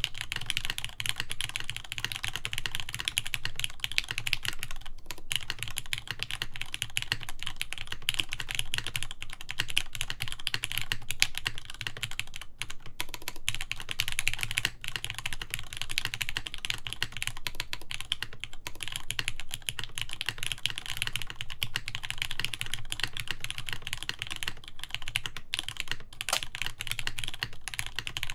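Continuous steady typing on a Mode Sonnet mechanical keyboard with Krytox 205g0-lubed Gateron X switches, an aluminum plate and GMK keycaps: a dense, even run of key clicks without pauses.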